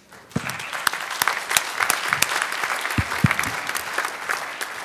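Audience applauding, starting about a third of a second in and easing off toward the end.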